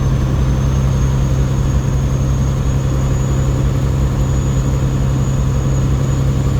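Semi-truck's diesel engine running with a steady low drone, with a thin steady high whine above it.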